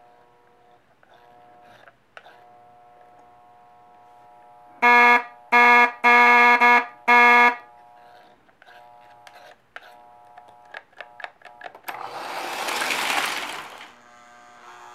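Lionel toy train's sound signal giving a series of five short, loud blasts over the faint steady whine of the running train. This is followed by a run of sharp clicks and a rushing noise that swells and fades near the end.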